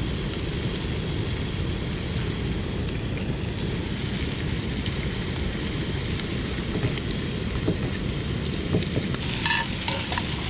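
Razor clam meat, onions and garlic sizzling steadily in a skillet on a camp stove, with a few light clicks near the end.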